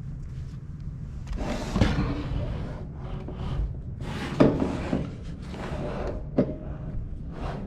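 Gutter-cleaning kit parts being handled as the universal sleeve is fitted onto the pole: rubbing and scraping, with sharp knocks about two, four and a half, and six and a half seconds in.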